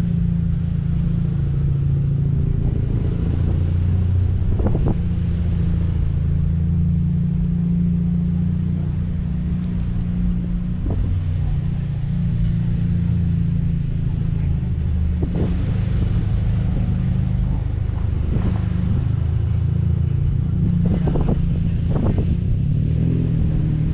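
Car engine and road noise heard from inside the cabin while driving slowly: a steady low rumble, with a few short thumps scattered through it.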